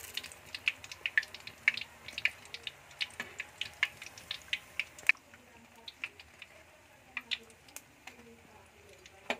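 Hot oil in a wok crackling and popping around potato and corned beef fritters deep-frying at the golden-brown, nearly done stage: rapid, irregular sharp pops over a faint sizzle. The popping thins out and the sizzle drops about halfway through, as most of the fritters have been lifted out of the oil.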